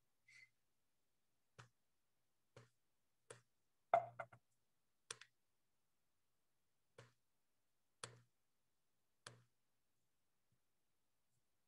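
Faint, irregular clicks about once a second, with a louder cluster of clicks about four seconds in, and near silence between them.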